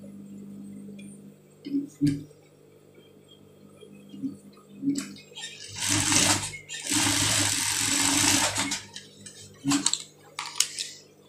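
Industrial sewing machine: the motor hums steadily, with a few clicks of the fabric being handled. About six seconds in comes roughly three seconds of stitching. Near the end come a few quick snips of thread clippers.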